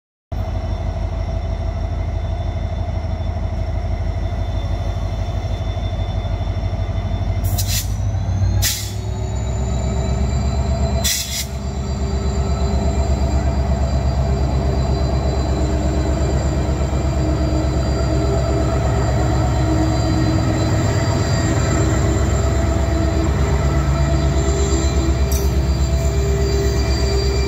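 WDP4B diesel-electric locomotive, with its EMD 16-cylinder two-stroke engine, running under power as it pulls a passenger train out of the station: a steady engine throb with a high whine above it, louder from about twelve seconds in as it draws near. Three sharp clicks fall between about a quarter and a third of the way in.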